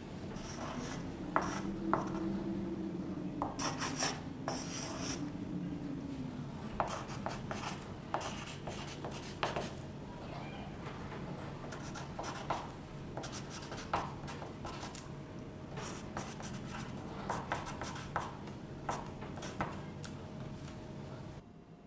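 Pencil writing on a sheet of paper: short scratchy strokes in quick runs, with pauses between words. The sound cuts off suddenly near the end.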